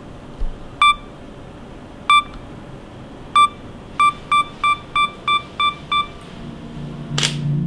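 Sony A7 III mirrorless camera's self-timer counting down: single electronic beeps a little over a second apart, then seven quicker beeps at about three a second as the shutter release nears. A single sharp click comes near the end, with music rising in underneath.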